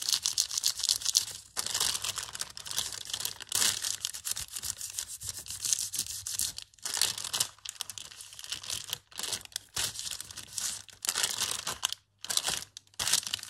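Thin, wrinkled paper crinkling and rustling under fingertips as it is rubbed down onto an inked gel printing plate to pull the print, in irregular strokes with a few short pauses. Near the end the sheet is peeled up off the plate.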